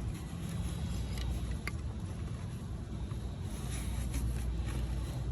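Steady low rumble with a few faint clicks and taps as a bolt is fished for by hand and worked toward its thread.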